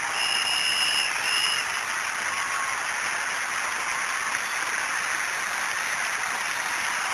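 Large crowd cheering and applauding steadily. Near the start a shrill whistle sounds from the crowd, a long note of about a second and then a short one.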